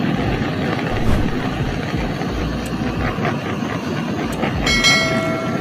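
Steady rushing roar of a jet of flame burning over a scooter carburetor body. A brief high ringing tone shows about five seconds in.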